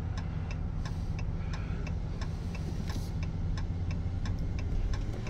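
Turn-signal indicator clicking steadily inside a vehicle cab, about three ticks a second, over the low hum of the engine and road noise as the vehicle turns into a parking lot.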